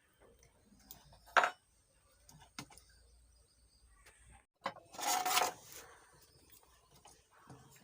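Small sharp clicks and taps of tools and parts being handled at an electronics workbench while diodes are fitted into an amplifier board, with a brief rustling scrape about five seconds in.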